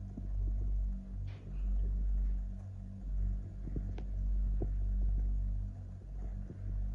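A low, steady hum that swells and fades, with a few faint taps about a second in and around four seconds in.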